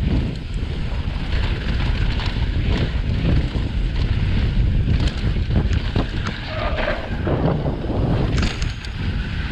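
Wind rushing over a mountain biker's camera microphone on a fast downhill run, mixed with the tyres running over loose, dusty dirt. The bike rattles and knocks over bumps throughout.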